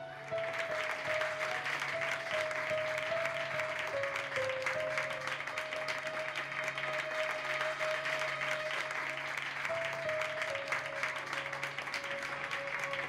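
A classroom of schoolchildren clapping, many hands at once, starting right at the beginning. It plays over background music with a slow melody of held notes.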